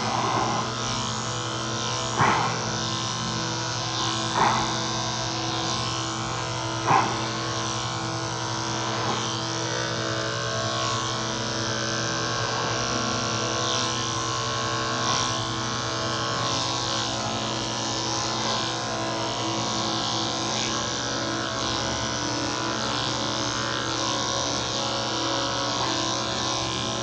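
Cordless electric dog clippers running with a steady buzz as they cut through a cocker spaniel's coat. Three brief louder sounds stand out about two, four and a half, and seven seconds in.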